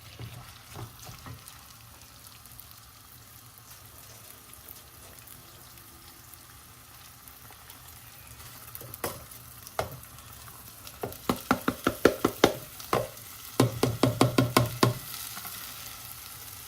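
Washed basmati rice frying in melted butter in a pan, with a steady faint sizzle. About nine seconds in, a utensil starts stirring the rice and knocks against the pan in quick runs of clicks.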